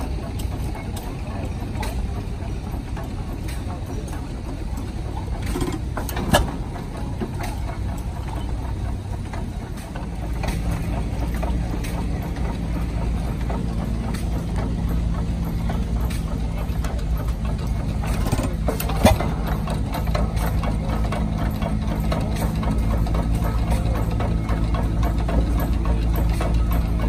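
6 hp International Harvester Famous hit-and-miss engine running, its flywheels spinning. In the first part it fires in sharp beats about every two seconds; from about ten seconds in it runs louder and steadier.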